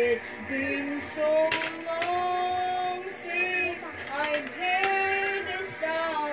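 A woman singing a slow melody in long held notes that glide from one pitch to the next.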